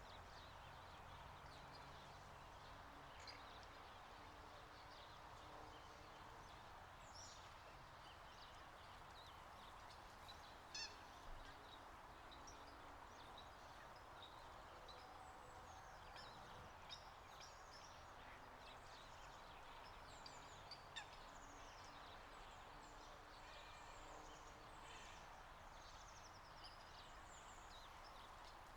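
Faint wild ambience: many short, high bird chirps scattered throughout over a steady rushing noise, with a few lower calls now and then.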